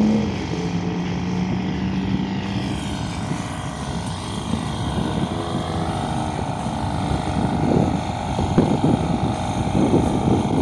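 A race car's engine fading away down the strip in the first moment, leaving a low, uneven rumble of distant car engines.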